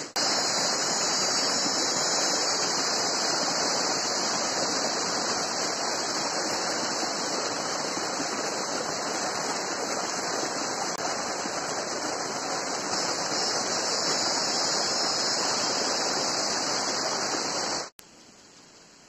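Steady rush of a small mountain stream running over rocks. It cuts off suddenly near the end, leaving a faint hiss.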